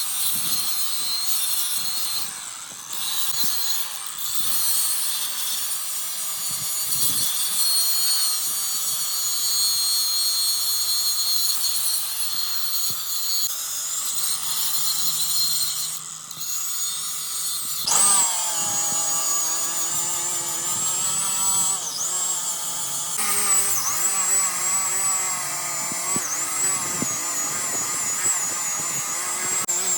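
A power tool running steadily in a metal repair shop, its whine wavering in pitch as the load changes. From about 18 seconds in the whine grows louder and plainer.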